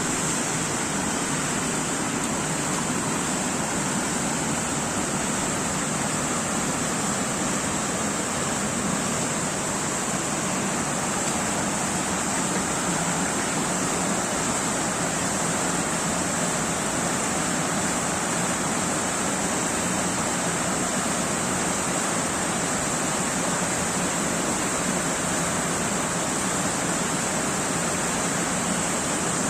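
Waterfall rushing with an even, unbroken roar of falling water.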